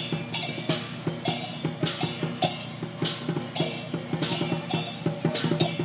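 Taoist procession percussion: drums beating under cymbals clashing about twice a second, each clash ringing briefly.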